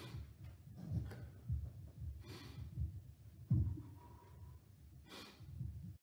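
Faint breathing and sighs from a preacher at the pulpit microphone, a handful of short breaths spread about a second apart after a passage of impassioned preaching.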